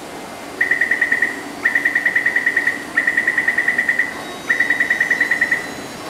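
Taipei MRT door-closing warning beeper sounding as the doors are about to shut: four bursts of rapid high beeps, about ten beeps a second, each burst lasting about a second.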